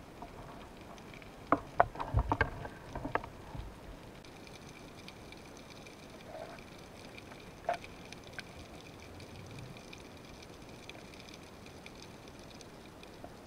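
Underwater ambience: a faint steady hiss, with a quick cluster of sharp clicks and knocks between about one and a half and four seconds in, and a single click near eight seconds.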